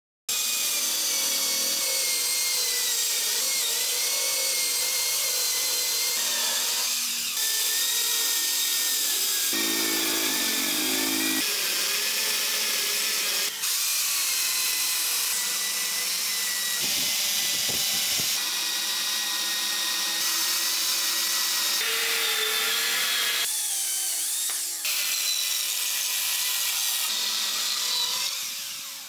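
Corded electric chainsaw and electric hand planer cutting solid wood. A steady high motor whine sags and wavers under load, changing abruptly every few seconds.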